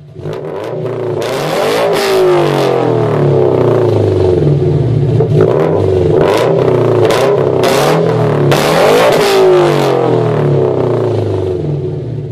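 Racing-car sound effect: car engines revving and cars speeding past, loud and continuous, with several whooshing passes.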